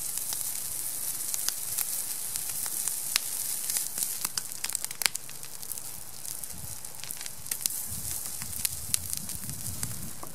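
Sausages sizzling in a pan over a campfire: a steady frying hiss with frequent sharp crackling pops.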